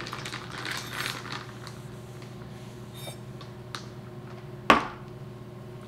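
A few light clinks and taps from a straw stirring an iced latte in a glass cup, with one sharper clink about three-quarters through, over a steady low hum.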